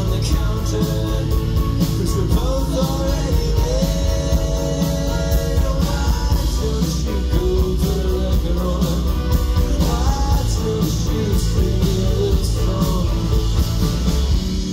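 Live indie rock band playing, with guitars and a steady drum beat under a winding melody line. Right at the end the beat stops and a held chord rings on.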